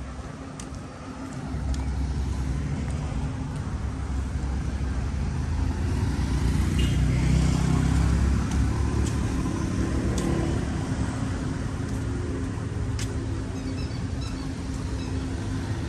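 Road traffic: a motor vehicle's engine running close by. It grows louder about a second and a half in, is loudest around the middle, then eases off.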